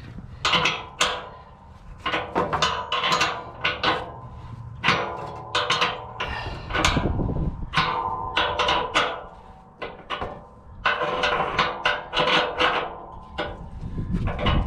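A wrench turning the adjusting nut on a snow plow's trip-spring eyebolt to add spring tension. It makes clusters of sharp metallic clinks and clanks, some with a brief ring, with short pauses between strokes as the wrench is repositioned.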